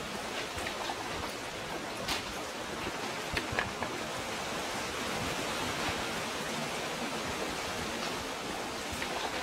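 Steady rush of water in a rocky sea cove, an even hiss with a few sharp clicks about two and three and a half seconds in.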